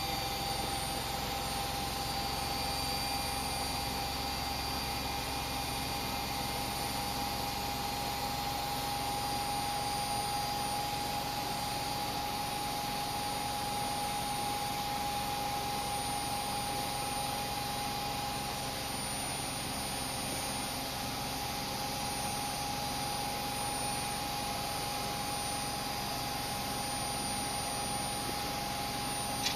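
Washing machine running steadily: a continuous whirring with a constant whine that does not change.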